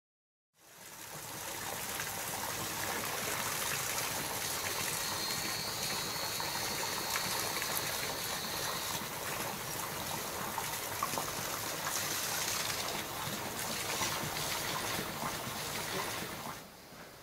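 Steady running water of a small garden stream, fading in about half a second in and dropping away sharply near the end. A faint high steady tone sounds for a few seconds in the middle.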